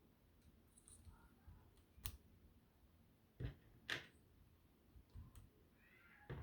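A few faint, sharp plastic clicks of Bionicle pieces being unclipped and pulled apart, about two seconds in, twice around the middle and once near the end.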